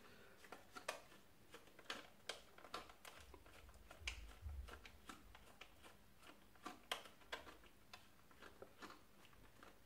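Faint, irregular clicks and ticks of a small screwdriver driving a body screw into a Lima HST power car's plastic body, with the model shifting in the hands.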